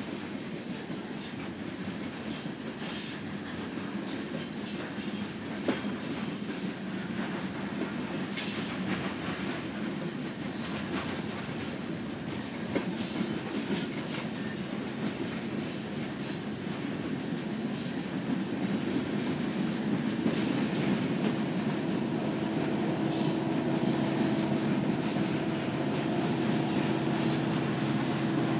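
A loaded coal train's cars rolling past: a steady rumble with wheel clicks over the rail joints, and a few brief high-pitched wheel squeals, the loudest about two-thirds of the way through. A steady hum grows louder over the last few seconds.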